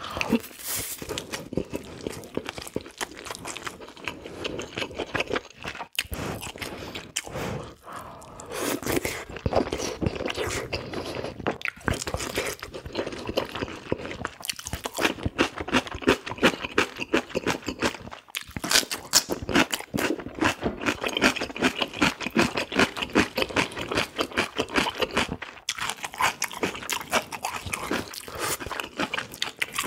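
Close-miked wet chewing and lip-smacking of a person eating spicy braised pig's feet (jokbal), a dense run of quick clicks broken by a few short pauses between bites.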